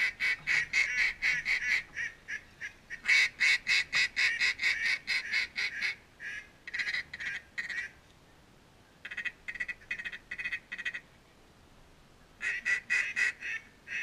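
Mallard duck call blown in runs of rapid, evenly spaced quacks, about six or seven a second, in five bursts with short pauses between, calling to ducks over the decoys.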